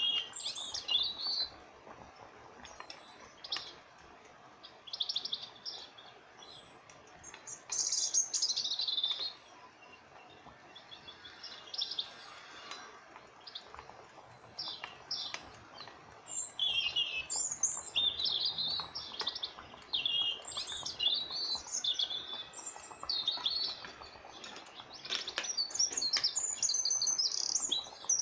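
Small birds chirping and trilling in short high-pitched calls that come and go, with a few light knocks in between.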